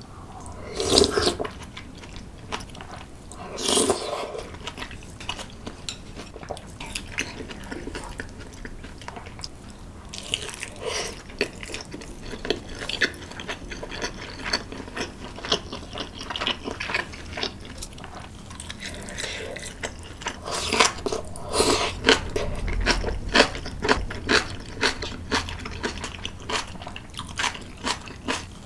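Close-miked eating sounds: biting and chewing food, with crunches and many small clicks. Louder bites come about a second in, near four seconds, and twice around twenty-one seconds.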